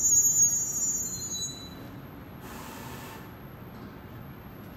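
NJ Transit multilevel train squealing with several high-pitched tones as it creeps to a stop, the squeal dying away about a second and a half in. A short hiss of air follows about a second later, over a low steady rumble.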